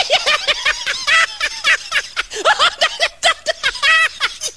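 A man laughing hard: a long run of rapid, high-pitched bursts of laughter, several a second.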